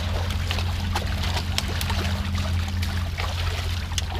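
Patin catfish thrashing in a crowded holding net as they are scooped out, with irregular sharp splashes and slaps of water. A steady low hum runs underneath.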